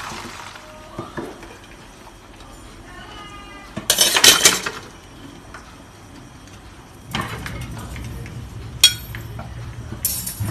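Metal kitchenware clattering: an aluminium tube cake pan knocked and handled on a wire cooling rack, loudest about four seconds in, with a couple of sharp clinks later. A steady low hum comes in from about seven seconds in.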